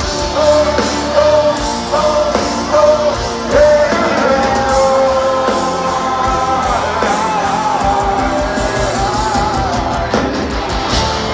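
Live heavy metal band playing with lead vocals holding long sung notes, heard from the crowd in a large hall. Fast, even kick-drum beats come in during the second half.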